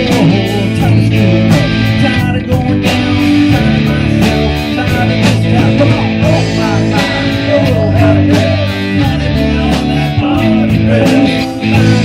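A live rock band playing, with electric guitar, bass and a steady drum beat, and a voice singing at times.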